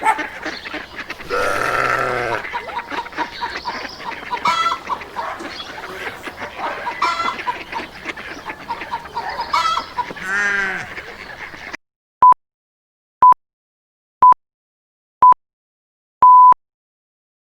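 Chickens clucking for about twelve seconds. After a sudden cut to silence, four short steady beeps about a second apart end in a longer fifth beep, like time-signal pips.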